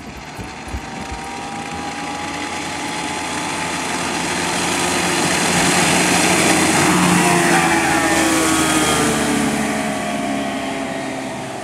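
1970 Mercury 1350 inline-six two-stroke outboard on a Powercat 15 boat running at speed past the listener. The engine note and rushing spray build to their loudest about six to eight seconds in, then the pitch drops and the sound fades as the boat moves away.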